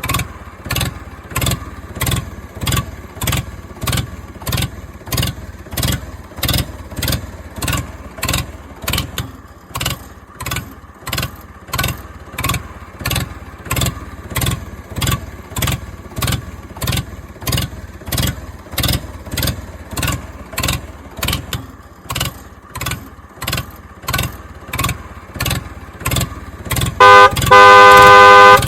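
A steady, engine-like pulse of about two beats a second from a vehicle sound effect. About 27 s in, a loud horn honk lasts about a second and a half.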